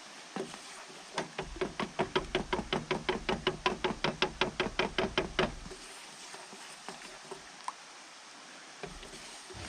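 A hammer striking in a quick, even series, about two dozen blows at roughly six a second, starting about a second in and lasting some four seconds, with a few single knocks before and after.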